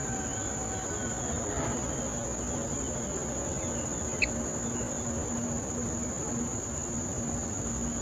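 Steady, high-pitched insect chorus droning without a break, with one short sharp click about four seconds in.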